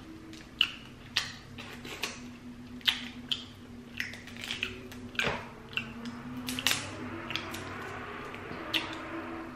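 Boiled crawfish being cracked and peeled by hand close to the microphone: a quick, irregular series of sharp cracks and snaps of shell, over a faint steady low hum.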